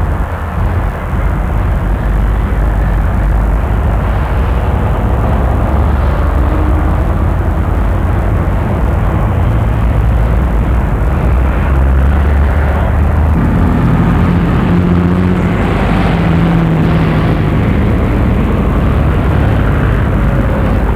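Steady road traffic: motor vehicle engines running, a continuous low-pitched noise.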